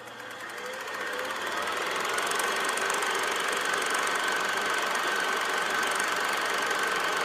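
Film projector sound effect: a steady rapid mechanical clatter with a constant high whine, fading in over the first couple of seconds.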